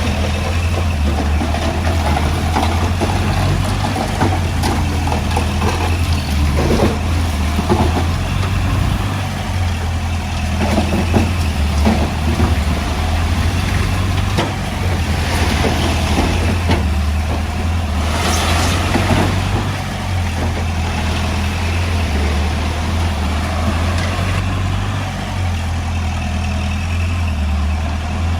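Heavy diesel engine of earthmoving equipment running steadily, with a brief burst of hiss about eighteen seconds in.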